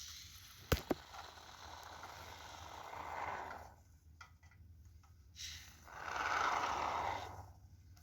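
Can of Great Stuff expanding foam dispensing, a hissing spray in two squirts, the second starting about five and a half seconds in. A short click sounds just under a second in.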